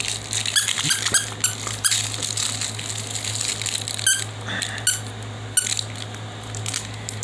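Rubber pig squeaky toy squeaking in an irregular string of short, high squeaks as a puppy chews and bites it.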